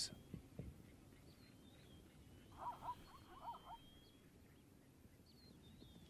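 Near silence: faint outdoor ambience with thin, high chirps and whistles, and a short cluster of soft calls from a wild animal about halfway through.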